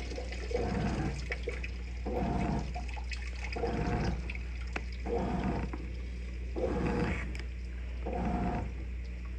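Avanti top-load washer agitating in a tub of high, sudsy water: the impeller swishes the water back and forth in regular strokes, about one every one and a half seconds, each with a short motor whine, over a steady low electrical hum.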